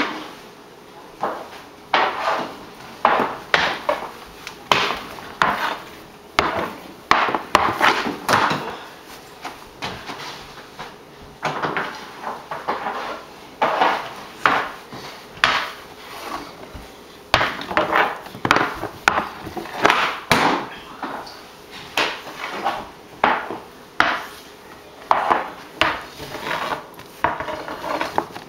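Hockey stick handling on a hardwood floor: irregular wooden knocks and clacks of the stick blade striking the floor and the puck, about one or two a second with quicker flurries, and scraping slides in between.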